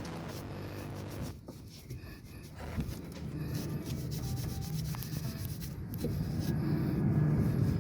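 Brush scrubbing grime off a Toyota Kijang Super's engine: a rubbing, scraping sound over a steady low hum that grows louder in the second half.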